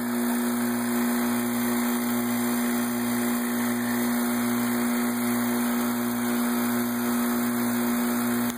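Homemade fusor running on 60 Hz high voltage, with its vacuum pumps going: a steady electrical hum, with a lower pulsing about one and a half times a second underneath.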